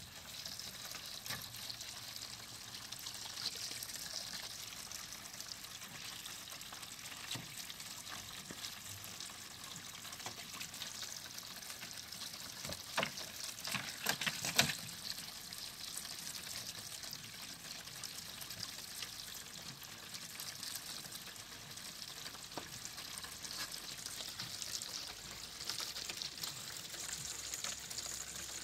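Water from a garden hose running into a dog's plastic pool: a steady hiss and trickle, with a few sharper sounds about halfway through.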